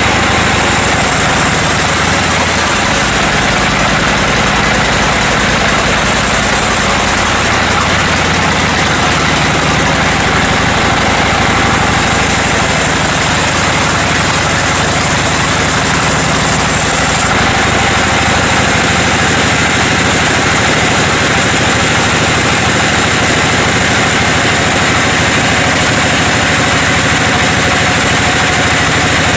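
Sawmill machinery running steadily: a loud, even engine noise with a hiss over it that changes a little twice.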